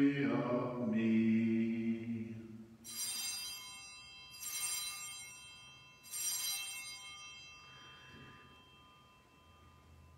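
Altar bells rung three times, about a second and a half apart, each a bright ring that fades away, marking the elevation of the chalice at the consecration. A man's voice ends just before the first ring.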